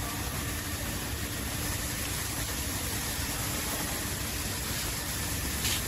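Steady background hiss and low rumble, with a faint hum that fades out about two seconds in and one light click near the end.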